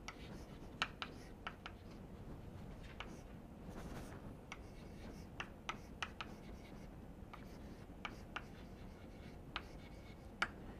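Chalk writing on a blackboard: a string of faint short taps as letters are struck, with a brief scratchy stretch about four seconds in.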